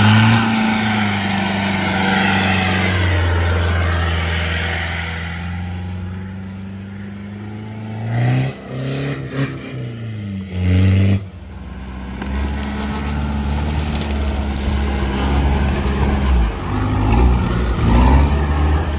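Mitsubishi Shogun Sport's 2.5-litre turbodiesel engine driving off-road through grass and mud, its revs rising and falling, with several quick revs near the middle.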